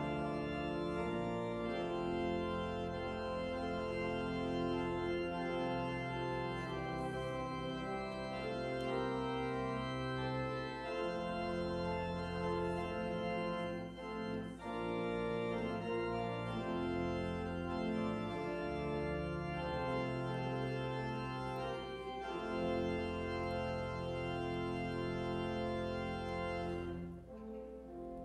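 Church organ playing slow, sustained chords over long held bass notes, the chords changing every few seconds; the music drops away near the end.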